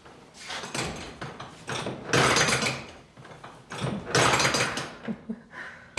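Three short scraping, sliding sounds, each about half a second long and about two seconds apart, from old wooden furniture being moved or handled.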